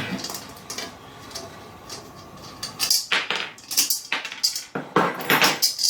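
Light clinks, then a quick run of short clatters and rattles from about three seconds in, as metal grill parts and small hardware (screws, lock washers) are picked up and handled.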